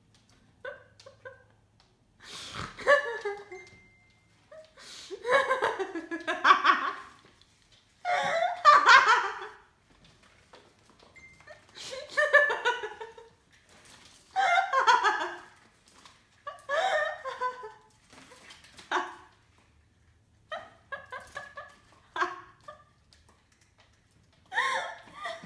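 A person laughing in repeated bouts, about ten bursts of laughter a second or two long, every couple of seconds.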